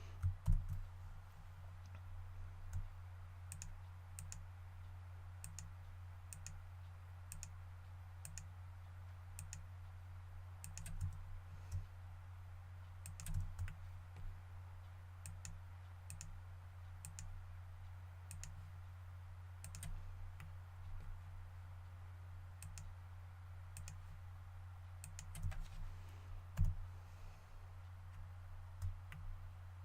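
Irregular clicks of a computer mouse and keyboard, scattered and a few at a time, over a steady low hum.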